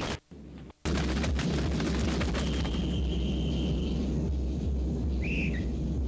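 Deep steady hum under a rushing hiss, the sound of degraded tape audio, cutting out abruptly for under a second right at the start. A thin steady whistle-like tone runs through the middle, and a short chirp rises and falls near the end.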